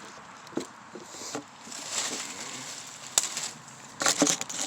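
Handling noise close to the microphone as a camera is set up: rustling with a few sharp knocks, the loudest about three seconds in and a quick cluster near the end.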